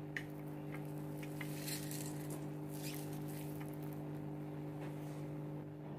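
Faint wet squishing and a few soft taps as a handful of grated taro root (kochu) is squeezed by hand over a steel plate to press out its water, over a steady low hum.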